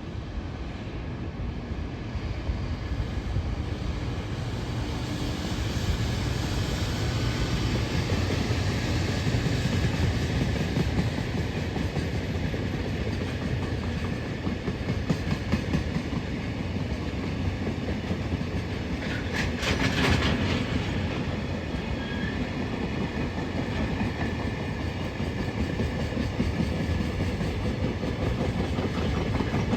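JR Freight EF210 electric locomotive and its string of Koki container flatcars rolling past: a steady low rumble of wheels on rail with continuous clicking over the rail joints, and a brief sharper clatter about two-thirds of the way through.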